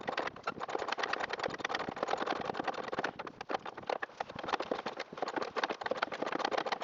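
Rapid, irregular metallic clicking and clatter of a socket ratchet and hand tools as a replacement horn's mounting bolt is worked in.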